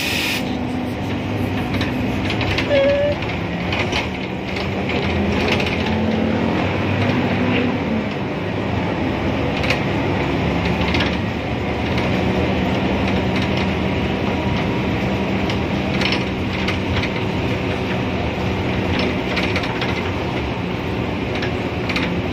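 Heard inside a moving city bus: steady running and road noise, with the cabin's fittings rattling and clicking now and then.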